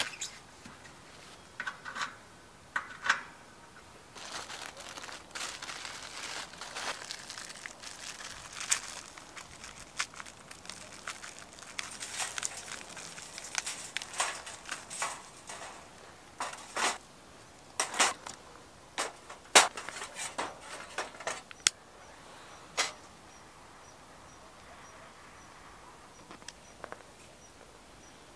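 Hands working at a small steel fire grill, crumbling a fire starter and setting split firewood on the metal: a light crackling rustle, then a run of sharp clicks and knocks in the middle stretch.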